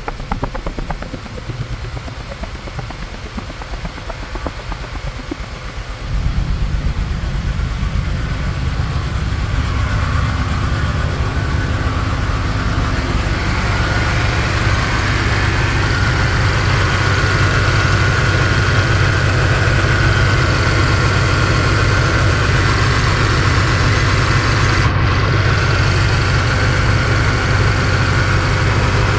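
2011 Cadillac SRX V6 engine running with a misfire on cylinder 3. About six seconds in it gets suddenly louder, then runs steadily, with a higher whine coming in from about ten seconds on.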